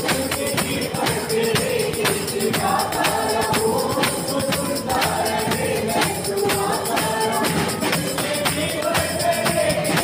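Group of voices singing a worship song together over hand drums (congas) keeping a steady beat, with bright jingling percussion.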